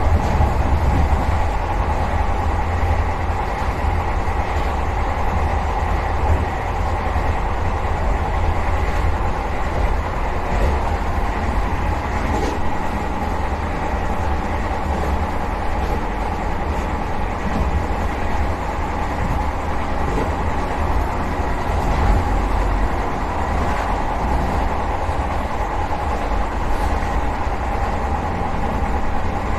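Vande Bharat Express electric trainset running along the track, heard from inside the driver's cab: a steady low rumble of wheels and running gear that does not let up.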